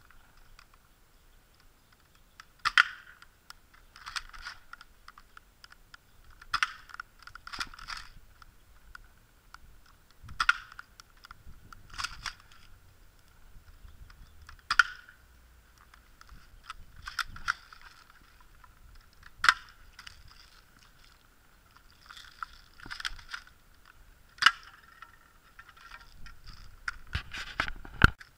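An airsoft masterkey, an M3000 spring shotgun slung under an M4, firing sharp single shots every couple of seconds. Runs of quieter plastic clacks come between the shots as the shotgun is worked.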